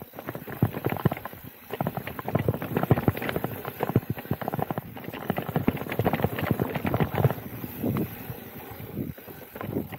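Specialized Turbo Levo Gen 3 electric mountain bike rattling and clattering over roots and bumps on a dirt singletrack trail, a dense run of irregular knocks with a brief lull about nine seconds in.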